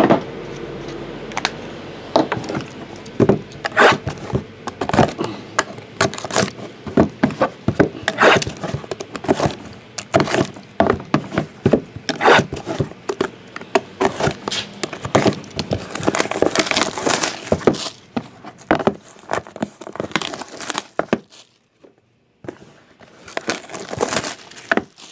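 Cardboard trading-card boxes handled on a table: a busy run of knocks, taps and scrapes, with a blade cutting through the tape seals.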